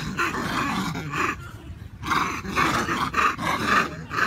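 Macaques screaming harshly in a fight, in two runs of raspy cries of a second or more each with a short gap between.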